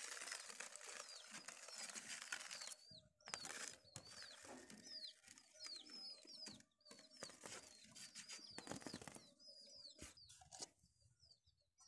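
Faint chirping of small birds: many short, quick falling chirps repeated throughout, over soft intermittent scraping and a few clicks.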